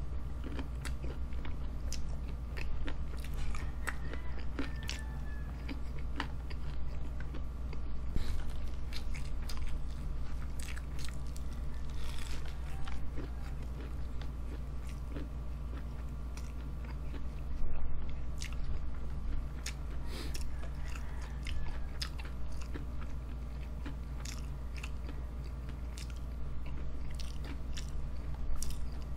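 Close-up eating sounds of fried chicken with melted cheese and rice: steady chewing with crisp, crunchy bites and wet mouth clicks, over a constant low hum.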